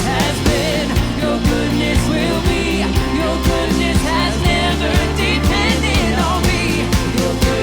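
Worship band music with a steady drum beat and sustained bass under a wavering singing voice.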